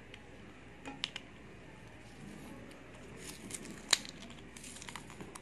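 Small card-and-plastic microSD card packet being handled and opened by hand, crinkling with scattered sharp clicks and ticks; the loudest click comes about four seconds in.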